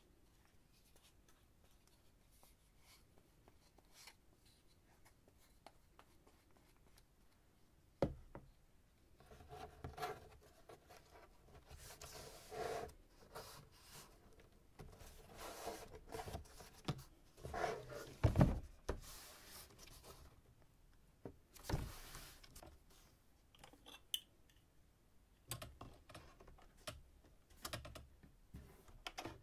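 Cardboard being handled and worked by hand: irregular scraping, rubbing and crinkling with a few sharp knocks, the loudest about two-thirds of the way through. The first several seconds are only faint room tone.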